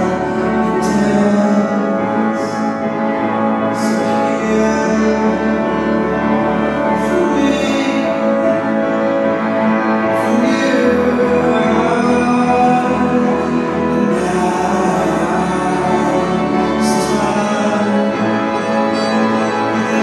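Music: a slow piece of held, sustained notes, with a few sharp percussive hits scattered through it.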